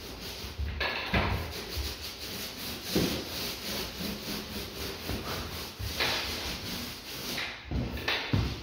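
Paint roller on an extension pole rolling paint onto a wall, a rubbing swish in several strokes, with shoes stepping on a wooden floor.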